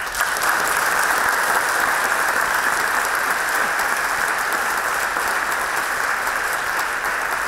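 Audience applauding: dense, steady clapping from a large crowd that starts all at once.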